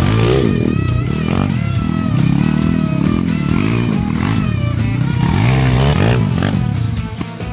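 YCF 150 pit bike's single-cylinder four-stroke engine revving up and down over and over as the rider works the throttle through the turns, easing off briefly near the end.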